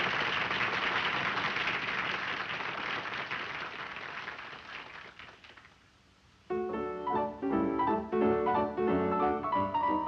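A steady rushing noise fades away over the first five seconds. After a moment of near silence, a piano starts playing a lively tune about six and a half seconds in.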